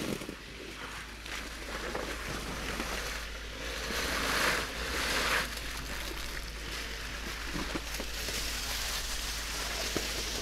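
Open-top 2021 Jeep Wrangler Willys on the move off-road: a steady rush of wind and road noise over a low rumble, swelling louder for about a second and a half near the middle.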